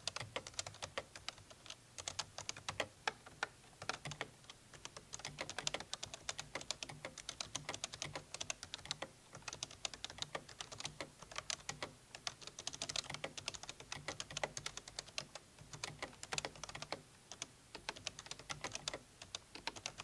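Typing on a HAVIT X1 mechanical gaming keyboard, heard close to the keys: a fast, uneven run of keystroke clicks with a few brief pauses. It has a normal key tone, without a loud clicky switch sound.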